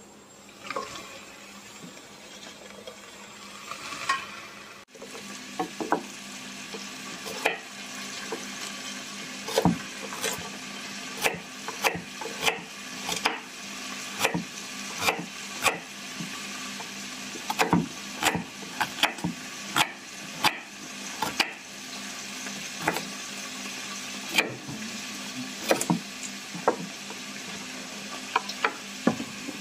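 Kitchen knife slicing a carrot into rounds on a wooden chopping board, each cut ending in a sharp knock on the board, about one a second, over a steady hiss.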